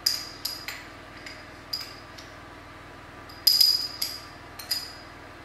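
A metal teaspoon tapping and scraping against a small ceramic ramekin to knock minced garlic out into a bowl: a string of sharp, ringing clinks about every half second, with a louder flurry about three and a half seconds in.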